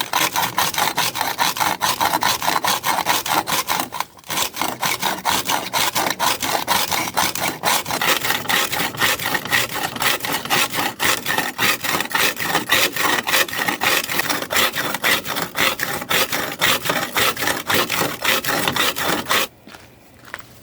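Rock crusher grinding roasted quartz ore down to fine powder: a fast, rhythmic grinding and scraping of rock, with a brief pause about four seconds in, stopping near the end.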